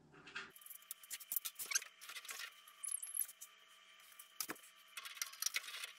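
Faint, irregular metallic clicks and taps of small nuts being put back by hand onto the door-fixing bracket studs of an integrated freezer door.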